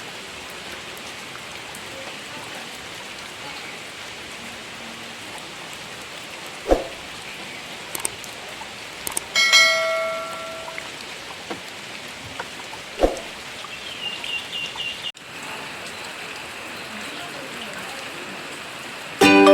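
Steady rain falling, an even hiss. Two sharp knocks stand out, about 7 and 13 seconds in, along with a short ringing tone near the middle and a quick run of high chirps a little later.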